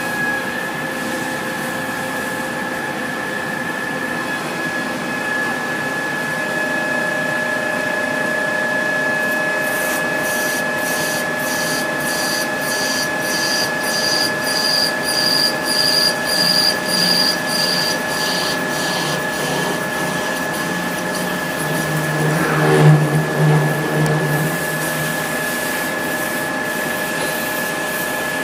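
Industrial machine running with a steady high whine. About ten seconds in, a run of rapid repeated clicks begins and lasts several seconds, followed by a brief louder low hum shortly before the end.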